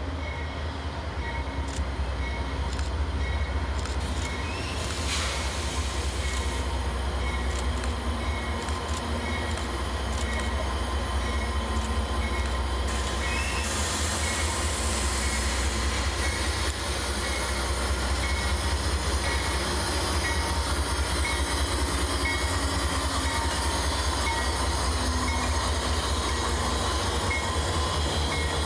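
Diesel freight locomotives rumbling past close by, followed by double-stack intermodal container cars rolling by on steel wheels with a light regular clicking. A high hissing screech from the wheels comes about halfway through, as the locomotives go by.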